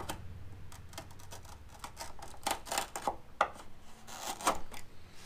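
Razor blade scraping and slicing old urethane window adhesive off the sheet-metal window flange of a car body: a run of irregular scrapes and small clicks, a few sharper strokes about halfway and again near the end.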